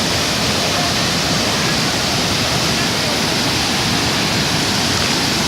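Steady roar of a waterfall's falling water, close by and loud.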